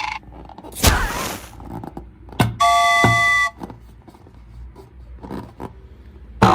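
A run of short sounds: a burst of noise about a second in, a knock, then a horn-like chord of several steady tones lasting about a second, followed by scattered clicks and a sharp knock at the end.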